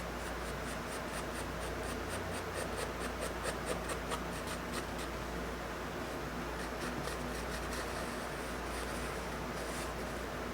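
Charcoal scratching on paper in quick shading strokes, about four a second for the first few seconds, then a few scattered strokes.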